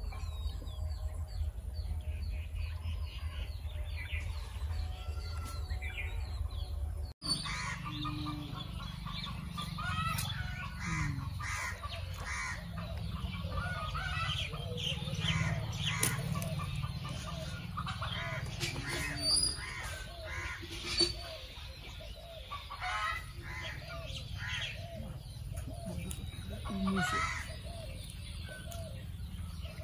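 Chickens clucking and a rooster crowing, with other birds calling, over a steady low rumble. The sound breaks off abruptly about seven seconds in, and the calls come thicker after that.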